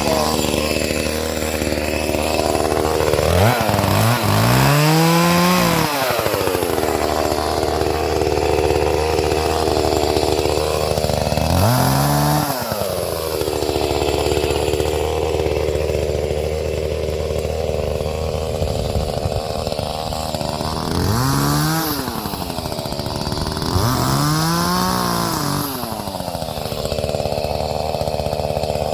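Small Echo chainsaw running at idle and revved up and back down four times, a few seconds apart, as it cuts through small saplings.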